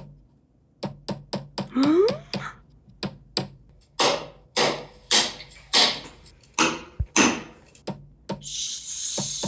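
A child banging toys, making repeated sharp knocks and bangs, uneven but about two or three a second. The heavier bangs come between about four and seven and a half seconds in. There is a short rising squeak about two seconds in and a brief hiss near the end.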